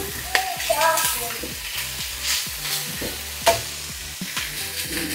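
Food sizzling in a frying pan as a spatula stirs it, with irregular scrapes and knocks against the pan. One knock, about three and a half seconds in, is louder than the rest. This is an Indonesian oseng stir-fry of stink beans and torch ginger.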